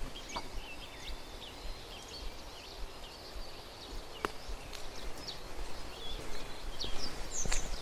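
Several small birds chirping and calling in short, high notes scattered throughout, over a low steady rumble. There is a sharp click about four seconds in, and the sound grows louder near the end.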